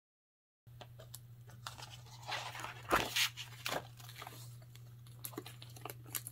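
A disc-bound paper planner being handled and fitted into a planner cover: paper and plastic crinkling and rustling with light clicks and taps, the loudest a single knock about three seconds in as the planner goes into the cover.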